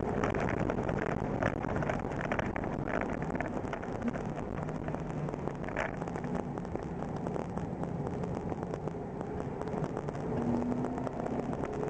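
Small car driving, heard from inside the cabin: the engine hums steadily while the tyres give a dense crackling road noise. The engine note shifts pitch a couple of times.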